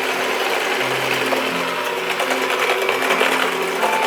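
KitchenAid stand mixer running steadily, its motor whirring as it beats cookie dough.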